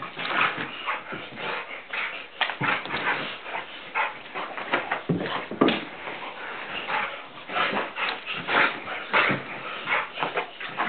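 Blue nose pit bull rough-playing with a person, vocalising and scuffling in a rapid, irregular string of short sounds.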